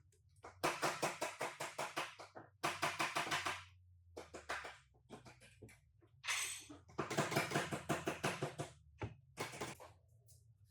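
Rapid runs of sharp clicks or taps, about nine a second, in four bursts over a low steady hum.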